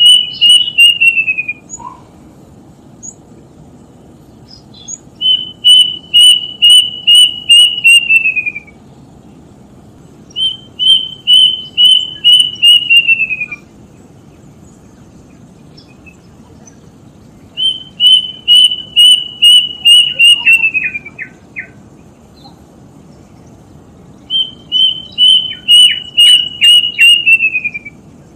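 A bird locally called the 'tutit tutit' bird calling in repeated phrases of about eight quick, high whistled notes, each phrase dropping slightly in pitch at its end. The phrases come five times, about every six seconds.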